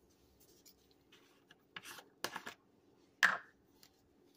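A few short scrapes and taps from spice jars being handled, around two seconds in and a louder one just after three seconds, over a faint hum.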